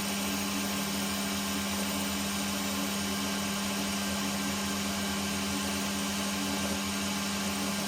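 Metal lathe running steadily while a boring bar cuts an internal bore, a constant motor hum with a steady low tone.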